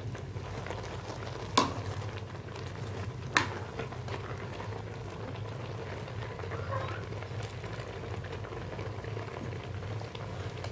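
Pot of leafy greens boiling hard on a gas stove, bubbling steadily over a low hum, while a metal ladle stirs it. The ladle clinks sharply against the aluminium pot twice, about one and a half and three and a half seconds in.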